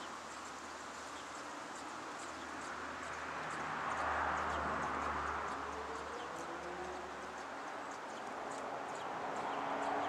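Outdoor background noise that swells and fades twice, with a low hum and faint high ticks.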